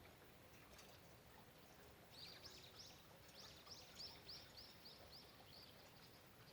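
Faint, steady patter of falling rain. About two seconds in, a bird sings a quick series of about a dozen high, repeated notes lasting roughly three and a half seconds.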